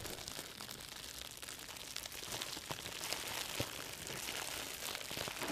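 Faint steady crackling and rustling with many small irregular crackles over a hiss.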